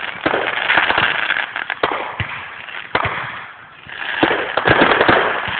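Aerial fireworks bursting: a rapid series of sharp bangs and pops over continuous crackling, which thins out briefly just past halfway, then picks up again.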